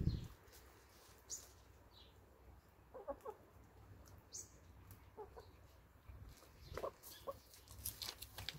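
Hens clucking quietly in short runs of low clucks: a cluster about three seconds in and a few more in the second half. Light ticks and scratches of beaks and feet in loose soil come between them.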